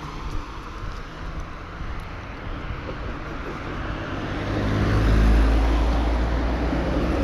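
A motor vehicle passing on a road: its engine hum swells to its loudest about five seconds in, over a steady rush of outdoor noise.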